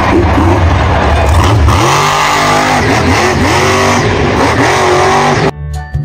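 Monster truck's engine revving hard, its pitch rising and falling again and again, over a loud noisy haze. About five and a half seconds in it cuts off abruptly to children's music.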